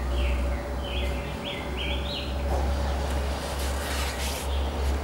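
A bird singing a quick run of short chirps in the first two seconds or so, each note a little higher than the last, over a steady low rumble. A few faint clicks or rustles follow later.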